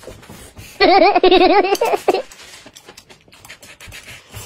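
A high, warbling giggle about a second long, likely a comic laugh sound effect laid over the scene, followed by faint clicking of chopsticks against a rice bowl as rice is shovelled in.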